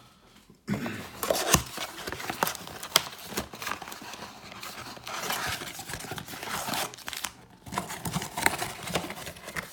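A trading-card blaster box being opened by hand: its wrapping and cardboard torn and rustled, with many irregular small clicks and crackles. It starts about half a second in.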